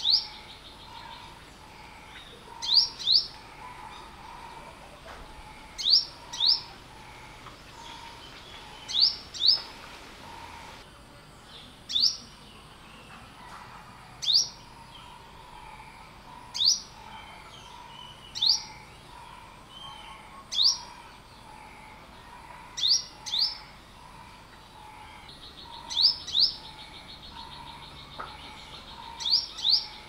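Olive-backed sunbird calling: short, sharp rising chirps, some single and some in quick pairs, about every two to three seconds.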